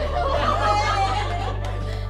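Background music with a sustained low bass that shifts to a new chord about half a second in, under people's voices and light laughter.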